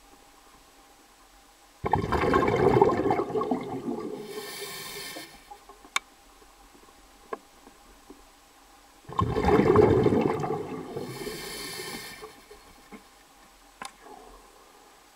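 Two bursts of rushing, gurgling water, each starting suddenly and lasting about three seconds before fading, some seven seconds apart, with a few faint clicks in between.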